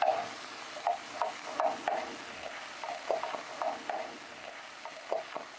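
Metal ladle stirring chicken pieces and minced ginger in a stainless steel pan, scraping and knocking against the pan a few times a second over a light sizzle of searing in oil. The stirring is louder in the first couple of seconds and fades near the end.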